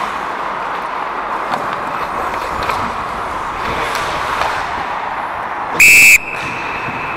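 Ice hockey referee's whistle blown once, a short, very loud blast close to the microphone near the end, stopping play as the goalie covers the puck.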